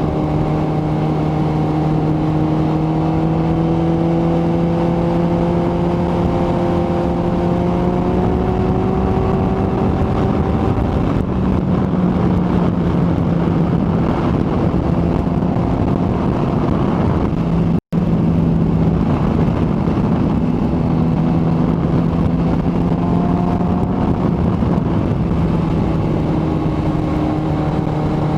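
Kawasaki ZX-14R inline-four engine running at a steady cruising speed under way. Its note climbs slowly for the first ten seconds or so, eases off slightly, then holds steady. The sound cuts out for a split second about two-thirds of the way through.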